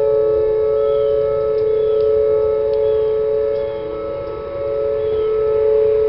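Several outdoor warning sirens, Whelen WPS-series electronic sirens, sound a steady alert tone together at slightly different pitches during a scheduled siren test. The level dips briefly about four seconds in.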